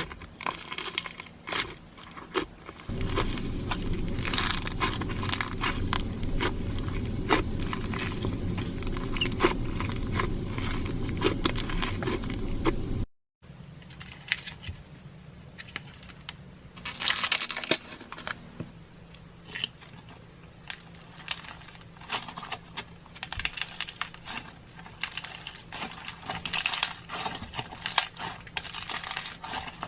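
Slime being squished, poked and stretched by hand, giving dense irregular clicking and crackling. A low steady rumble sits under the first half, and the sound cuts off briefly at an edit about 13 seconds in before the clicking resumes.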